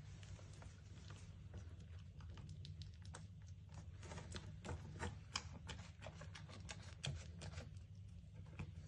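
A young goat kid pulling at and chewing fresh grass: quick, irregular crisp crunches and clicks, several a second.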